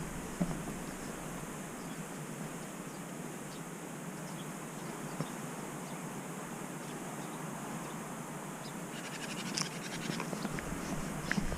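Steady hiss with faint scratching from a cat-worn GoPro rubbing on the cat's fur and harness, with a short run of fast ticks about nine seconds in.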